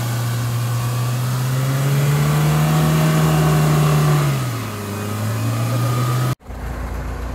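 Chevrolet Niva's engine running hard under load as its front wheels spin in deep mud during a winch recovery. The engine note climbs a little, drops back about four and a half seconds in, and then holds. It cuts off abruptly about six seconds in, replaced by a quieter, lower hum.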